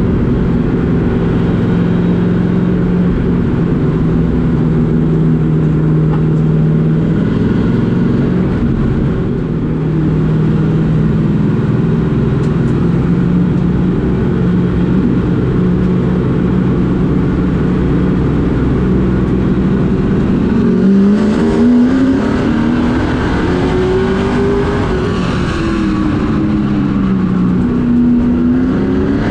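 Race truck engine heard from inside the cab, holding a steady pitch for about twenty seconds. About two-thirds of the way in it starts to rev up and down, its pitch rising and falling about twice as the driver accelerates and lifts.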